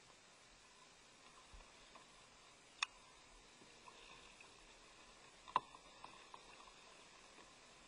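Near-quiet open water with two sharp knocks, about three seconds apart, from fishing gear handled against a kayak, and a few faint light ticks between them.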